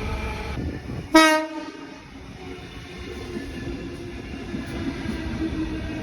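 A Sydney train's horn giving one short, sharp toot about a second in, over the steady running rumble of the train.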